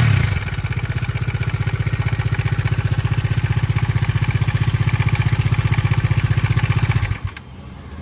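Bajaj Dominar 400 BS6's single-cylinder engine idling with an even, pulsing clatter, then switched off about seven seconds in. The owner traces the noise to the timing chain, with camshaft and crankshaft trouble following from it.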